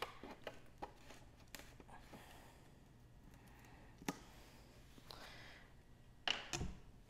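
Faint plastic clicks and rustling as the cap of a gallon jug of Elmer's school glue is worked open by hand, with a louder knock about six seconds in.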